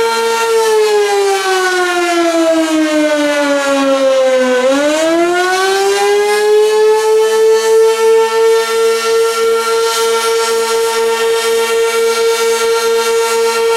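Sentry 16V1T-B electromechanical outdoor warning siren sounding the attack signal, very loud at close range: a steady wail that sags in pitch for about four seconds, swoops back up and holds steady again, its loudness swelling and fading in a regular rhythm.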